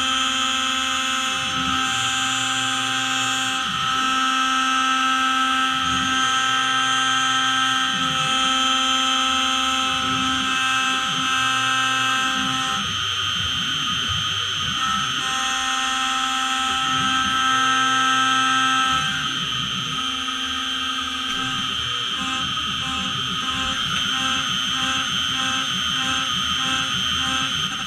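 Small CNC milling machine's spindle whining at a steady pitch while its end mill cuts a white Delrin block. The cutting noise swells and eases in a regular cycle of about two seconds as the tool makes its passes, and turns quieter and changes pattern about two-thirds of the way through.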